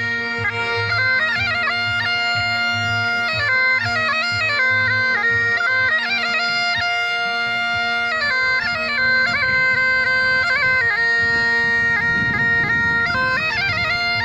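Bagpipe playing an ornamented folk melody over a steady drone, with a low regular pulse beneath it in the first half.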